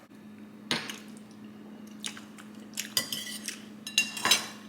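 Cutlery clinking and scraping against a plate: about half a dozen separate sharp clicks, some ringing briefly, over a faint steady hum.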